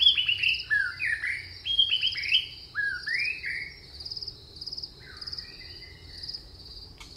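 Birds chirping in quick rising and falling calls, busiest in the first three seconds and thinning out later, over a steady pulsing trill of insects.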